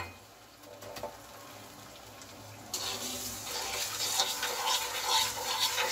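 A wooden spatula stirring sugar and water in a nonstick pan to make sugar syrup. It is quiet at first; from about three seconds in, a steady hiss starts suddenly, with scraping, rubbing strokes of the spatula over it.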